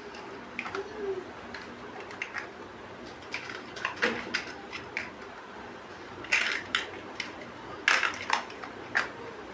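Plastic building bricks clicking and clacking as they are handled and pressed together, in short irregular clicks, with louder clusters of clacks about six and eight seconds in.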